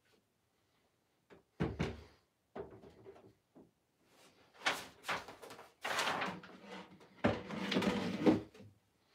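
Snowboards being handled and leaned against a wall: a knock about a second and a half in, light scraping, then a series of louder knocks and scrapes as the boards are set in place.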